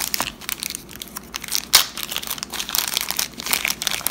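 Clear plastic bag crinkling in irregular crackles as hands handle it and work a folding knife out of it, with one sharper crackle a little under two seconds in.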